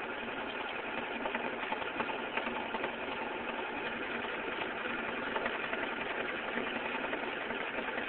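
Vacuum pump running steadily, drawing on an electrolysis cell that makes so much gas the pump holds only about 24 inches of mercury.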